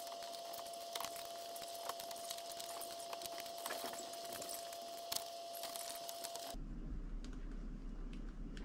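Light metallic clicks and clinks of tools and small engine parts being handled. A faint steady tone sits under them and stops about six and a half seconds in.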